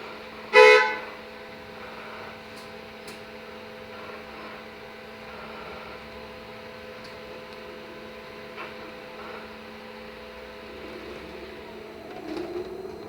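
A single short vehicle horn honk about half a second in, the loudest thing here, over the steady electric hum of a LiAZ-6274 electric bus in motion.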